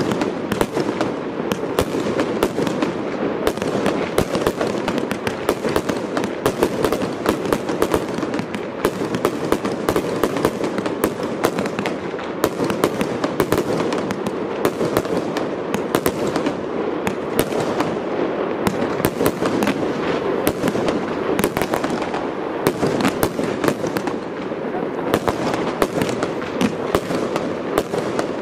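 Aerial fireworks crackling: a dense, unbroken stream of sharp pops, many each second.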